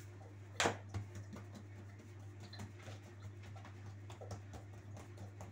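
Pizza dough slapped down onto a floured countertop with a thump a little over half a second in, then light pats and taps of fingertips pressing it flat, over a steady low hum.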